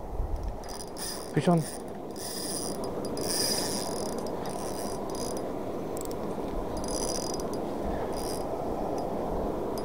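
A spinning reel being cranked to retrieve line, its gears whirring in short spurts.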